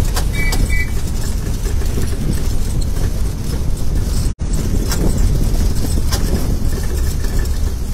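Tourist road train running along a town street, heard from its open carriage: a steady low rumble of the tractor unit and the carriage with light rattles. The sound cuts out completely for an instant about halfway, then returns.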